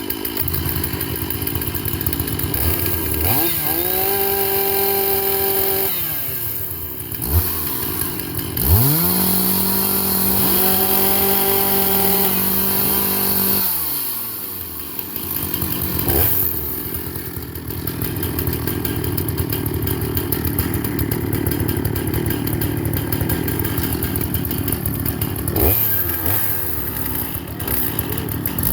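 A large two-stroke chainsaw running. Twice it revs up to a steady high pitch at full throttle and drops back. In between and through the second half it runs with a rougher, uneven note, as when it is pulled down in the cut.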